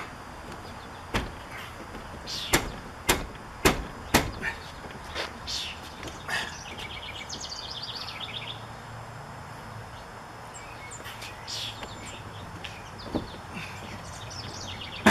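A window air conditioner being worked into its aluminium frame opening: a series of five sharp knocks and bumps, then lighter scuffing. Birds chirp in the background partway through.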